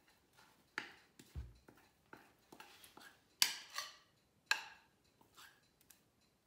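A spoon scraping and tapping against a small ceramic bowl as a yeast starter is scraped out into flour: scattered light clicks and knocks at irregular intervals, the sharpest about three and a half seconds in, with one soft low thump about a second and a half in.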